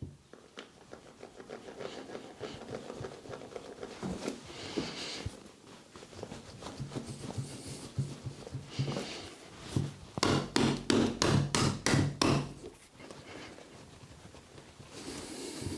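Repeated percussive knocks of hands or a tool working on a body during chiropractic treatment. A run of louder, evenly spaced strikes, about three a second, comes roughly two-thirds of the way through.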